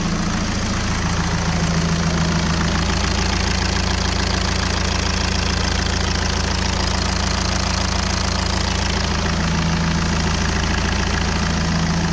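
Volkswagen 2.0 TDI CJAA four-cylinder common-rail diesel idling steadily, heard close at the open engine bay. It is running on freshly fitted, larger Bi-turbo TDI injectors, and the idle sounds cammed.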